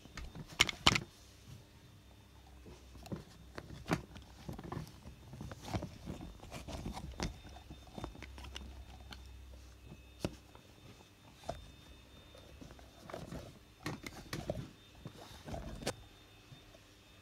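Irregular handling noise: scattered taps, knocks and rustles as things are moved and rubbed close to the microphone, with two sharp clicks about a second in.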